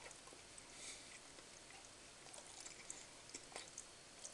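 Near silence, with a few faint scattered clicks of someone chewing a cocoa-dusted chocolate truffle with his mouth closed.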